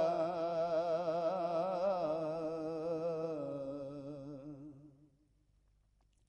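A male naat reciter's voice holding a long sung note with a steady wavering vibrato, slowly fading away and ending about five seconds in.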